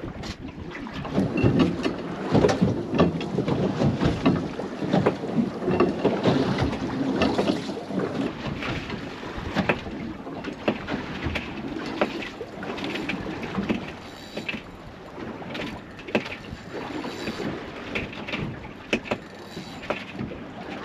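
Water splashing and slapping against a small fishing boat's hull, with irregular knocks and rattles.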